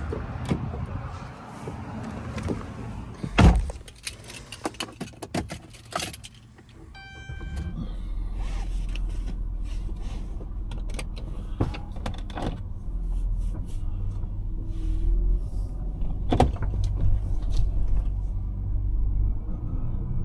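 Minivan being got going: a loud thump about three and a half seconds in, rattling clicks of keys, and a short electronic chime, after which the van's engine runs with a steady low rumble as it drives.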